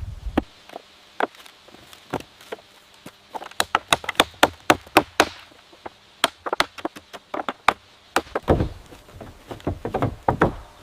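Rapid, irregular knocks and taps of tools striking wood, hammering and chopping in quick bursts. Heavier, deeper thuds join in about two-thirds of the way through.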